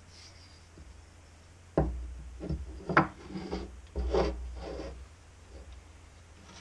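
A wooden block knocked down onto a workbench top, then slid and shifted across it in about five short scrapes and knocks, over a steady low hum.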